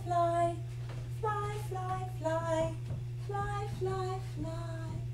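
A high voice singing short falling three-note phrases, each note held briefly, with a short pause between phrases, over a steady low hum.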